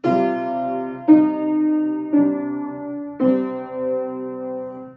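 Piano playing four sustained notes about a second apart, the last held longest, fitting the descending step fa, mi, re, do that leads back to the tonic in a C major ear-training exercise.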